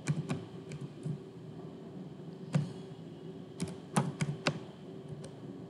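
Computer keyboard being typed on: a dozen or so irregular key clicks, with a quick run of them about two-thirds of the way in, over a faint steady low hum.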